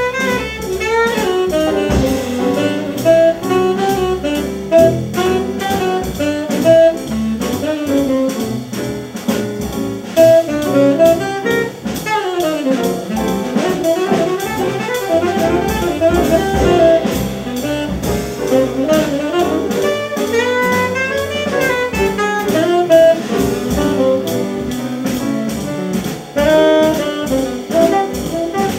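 Live small-group jazz: a tenor saxophone solos in fast, winding runs over walking double bass and drum kit.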